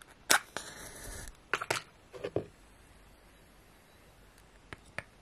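A wooden match struck: a sharp scratch, then about a second of hiss as it flares, followed by a few light clicks.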